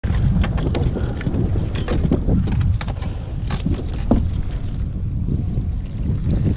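Wind buffeting a GoPro action camera's microphone as a steady low rumble, with scattered clicks and knocks from handling gear on a plastic kayak, the loudest about four seconds in.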